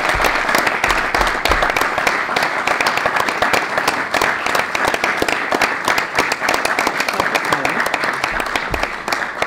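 An audience applauding: many hands clapping at once, thinning out near the end.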